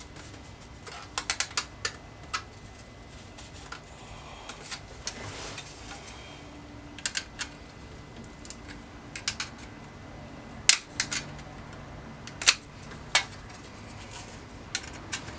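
Irregular sharp clicks and taps of metal and plastic as the clips of a car radio's metal mounting sleeve are handled and worked with a screwdriver, with a couple of louder snaps in the second half.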